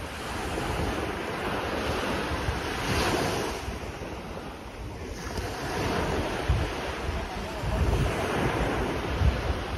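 Small sea waves breaking and washing up a sandy beach, the surf swelling and fading every two to three seconds. Wind buffets the microphone in low gusts toward the end.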